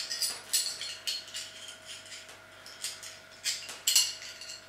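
Small steel bolts, nuts and washers clinking as they are handled and set down on a concrete floor: a run of light, irregular metallic clinks.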